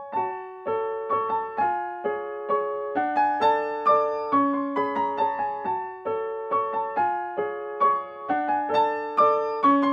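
Background piano music: a light melody of single notes and broken chords, about two to three notes a second, each note struck and left to fade.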